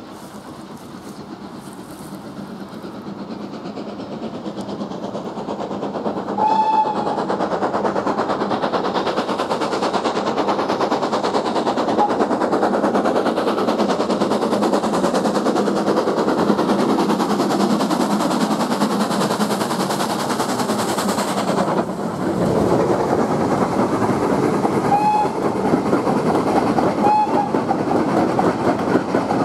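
A steam-hauled passenger train approaches, growing louder over the first several seconds, then runs close past with a loud, steady rush of locomotive and wheel noise on the rails. The coaches follow with clickety-clack over the rail joints. Short high-pitched tones sound about seven seconds in and twice near the end.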